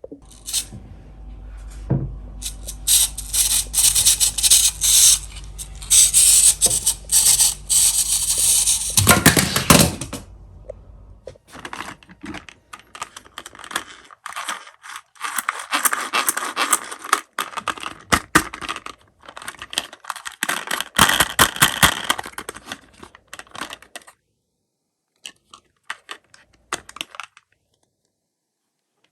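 Small toy minicars clattering and scraping against one another and against a box as they are handled and slide together. It comes in several bursts of rattling, then only a few scattered clicks.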